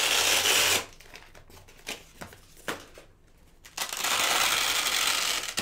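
Two Velcro straps ripped open one after the other: a rasping tear ending about a second in, then a second tear from about four seconds in, with a few light taps between.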